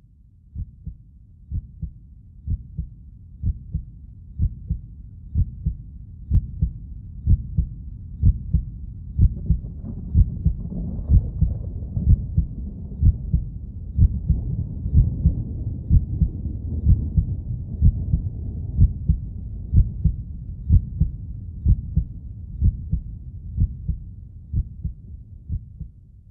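Heartbeat sound effect: steady low thumps about once a second over a low hum. It swells toward the middle and fades out near the end.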